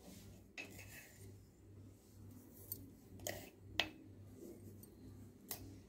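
Faint handling sounds as salt is sprinkled into a steel bowl of spiced chicken: a handful of light clicks and taps spread through, over a low steady hum.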